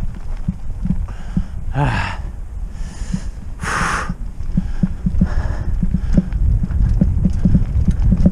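Trek Roscoe 6 hardtail mountain bike rattling and knocking over rough trail: many small clicks over a low rumble. A few short hissing rushes of noise come through, the strongest about two and about four seconds in.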